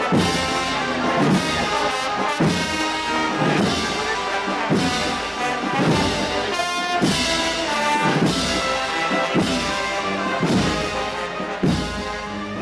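Brass band playing a slow Holy Week processional march, with a steady beat a little under once a second.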